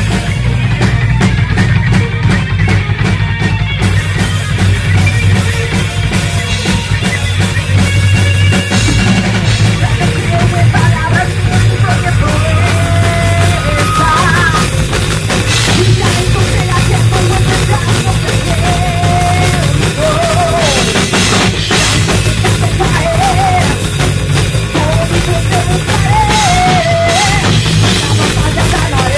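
Loud rock music with a full drum kit and heavy bass playing steadily; a wavering lead melody comes in about ten seconds in.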